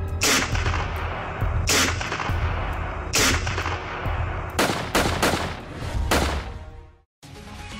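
Intro sound design: six loud, sharp cinematic hits like gunshots, each with a long echoing tail, over a steady low drone. The last two come close together, and the sound cuts off sharply near the end.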